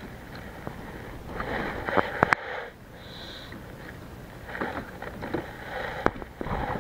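Handling noise on a plastic fishing kayak: rustling, with a few sharp knocks, three close together about two seconds in and one more near the end.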